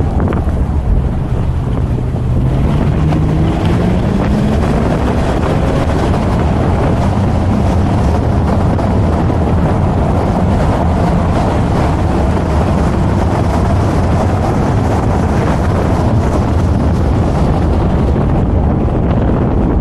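BMW Z4 M40i's turbocharged inline-six running under load, its pitch climbing over a couple of seconds early on as the revs rise, then running on steadily. Heavy wind buffeting on the microphone and road roar sit under it.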